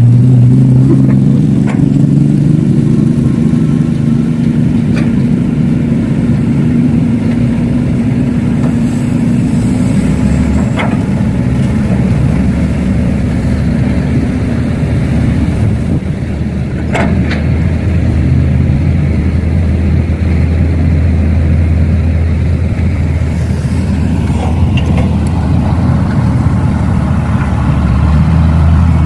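Heavy-vehicle diesel engine sound running steadily, its low drone changing pitch a few times, with several sharp clicks scattered through.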